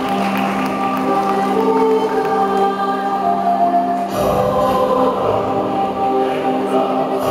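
Children's choir singing with musical accompaniment, holding long sustained notes.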